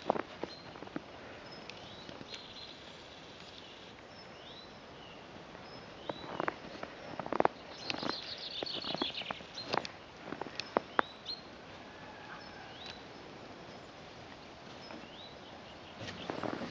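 A bird chirping, short high calls every second or two, with a brief run of high chatter about halfway through. Scattered sharp clicks and rustles, busiest in the middle, as puppies move about in snow and dry twigs.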